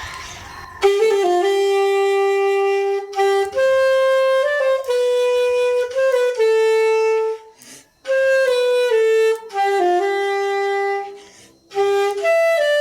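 Recycled saxophone, made from spoon handles and buttons, playing a slow solo melody of held notes, with brief breaks between phrases about halfway through and near the end.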